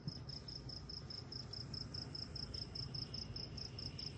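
A cricket chirping steadily in a fast, even pulse of high chirps, about five a second, over a faint low rumble.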